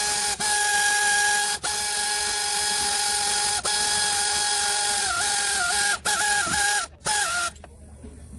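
Compressed-air shop tool running in several bursts: a loud hiss with a steady whine, cut off briefly a few times, the whine's pitch dipping a few times before it stops near the end.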